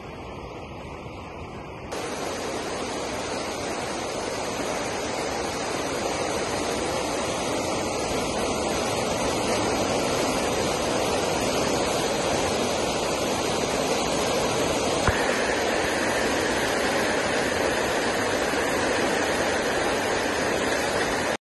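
Flood-swollen river rushing and churning through the piers of a road bridge: a steady roar of water. It jumps louder about two seconds in and swells a little further over the next several seconds.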